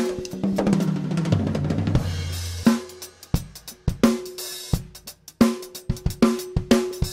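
Drum kit played: a fill that steps down in pitch over the first couple of seconds, then a beat with kick, hi-hat and cymbal, and backbeats on a 12x7 Australian wandoo stave snare that rings after each hit.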